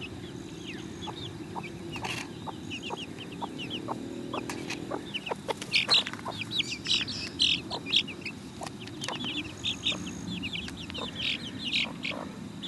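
A brood of young chicks peeping in quick, high, repeated cheeps, busiest from about six seconds in, with a bantam hen clucking low among them. Scattered light clicks sound throughout.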